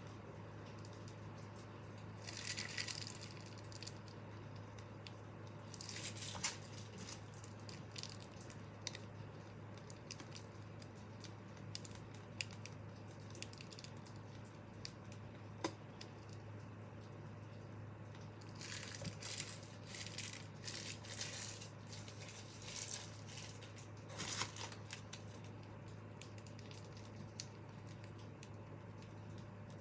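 Crinkling and rustling of a piping bag and a paper cupcake liner held in the hand while frosting is piped, coming in short bouts with a few small clicks, over a steady low hum.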